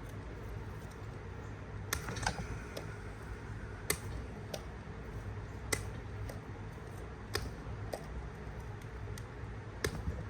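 Scattered sharp clicks and taps at irregular intervals, about nine in all, from small electronic parts and hand tools being handled on a workbench, over a steady low hum.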